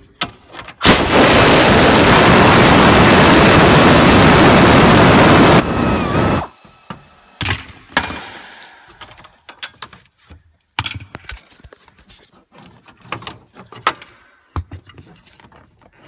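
Cordless impact tool running hard for about five seconds as it backs out a dash-mounting bolt, then cutting off. Scattered clicks and knocks follow as the bolt and tool are handled.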